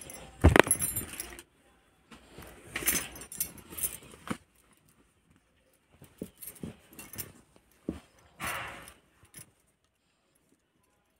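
Fabric rustling and handling noise as a t-shirt is unfolded and spread out by hand, coming in several short bursts with quiet gaps between. There is a sharp knock about half a second in.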